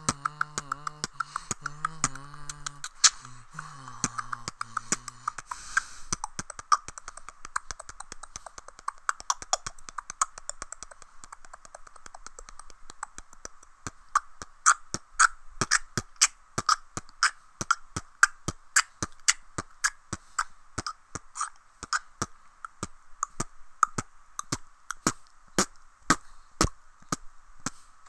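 Solo human beatboxing. For the first five seconds or so a hummed, wavering bass line runs under quick mouth clicks. After that it is only a rhythm of sharp percussive mouth clicks and snares, with loud hits about two to three a second.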